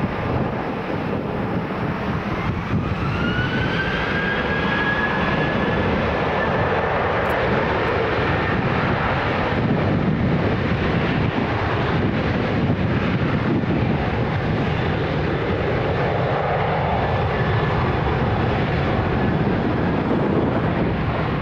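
Boeing 737 twin jet engines spooling up to takeoff thrust: a whine rises over a few seconds, then holds steady over a constant jet rumble.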